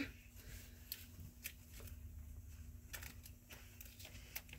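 Faint crinkling and light clicks of clear plastic die packages being handled and hung on the pegs of a display rack, a few scattered ticks over a low steady hum.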